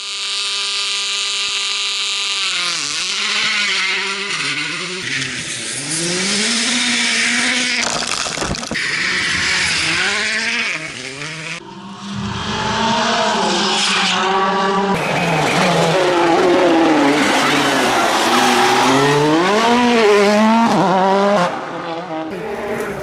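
Volkswagen Polo R WRC rally car's turbocharged four-cylinder engine running hard, its pitch rising and falling over and over as it revs through the gears. It holds a steady note at first, then changes abruptly a few times.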